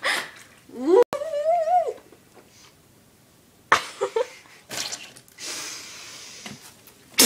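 A girl's voice giving a drawn-out wail that rises in pitch and holds for about a second, a reaction to the mouthful of salt, followed by scattered short noisy sounds.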